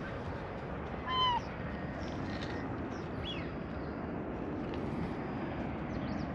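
A cat gives one short, high meow about a second in, over a steady low outdoor background noise.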